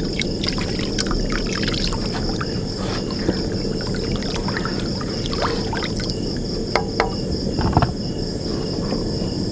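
Curry broth being stirred and ladled with a plastic ladle in a stone-coated pot: liquid sloshing and pouring, with light clicks of the ladle against the pot. A steady high insect chirring runs behind it.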